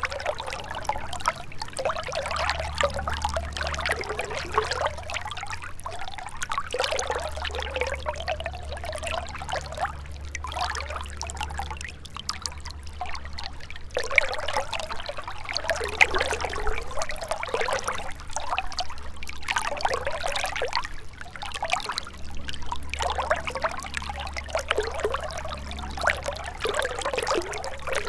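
A gentle river flowing: a steady trickling, burbling rush of water with constant small splashes, over a low rumble that fades in and out.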